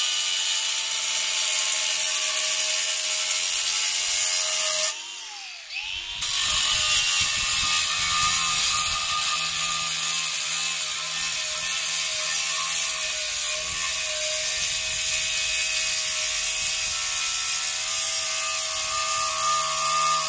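Angle grinder cutting into a concrete pavement slab, scoring a thin shallow groove along which the slab will be snapped: a steady motor whine over a harsh grinding hiss. About five seconds in the sound briefly drops away and the motor pitch sags, then picks up again as cutting resumes.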